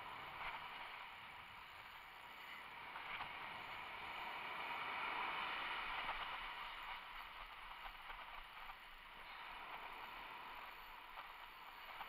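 Ocean surf breaking and washing up a sand beach, a steady rush that swells louder about halfway through.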